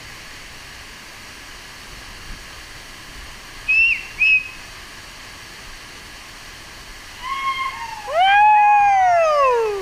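Steady rush of a waterfall pouring into a pool. Two short high whistles come about four seconds in, then a few brief notes, and near the end a long, loud whistled call that rises and then glides down.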